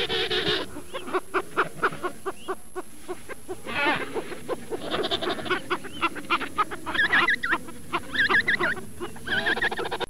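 Penguins calling: a loud call as it begins, then a string of short, rapid calls, and wavering trilled calls over the last few seconds.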